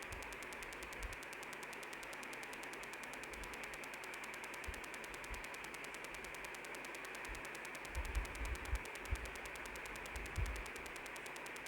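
Steady hiss of wind and road noise on the camera's microphone while riding a motorcycle at speed, with a handful of brief low thuds of wind buffeting about two-thirds of the way in.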